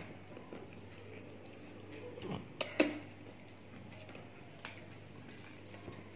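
Quiet sounds of people eating rice and curry by hand from stainless steel plates, with two sharp clicks close together about two and a half seconds in, over a steady low hum.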